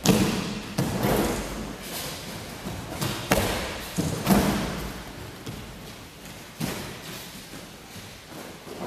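Thuds of judoka landing on tatami mats after flips over a row of bent-over partners, with running footfalls on the mats between them. Several separate impacts, the loudest just after the start and around three to four seconds in.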